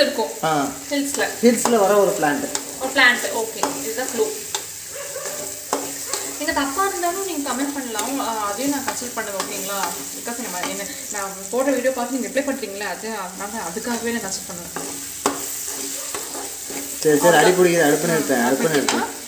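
Small onions, dried red chillies and tomato sizzling in oil in an aluminium kadai, stirred and scraped around the pan with a flat spatula, with scattered clicks of the spatula against the metal.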